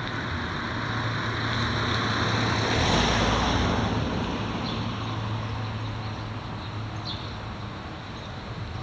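E7 series Shinkansen train running past: a rushing running noise swells to a peak about three seconds in and then fades, over a steady low hum.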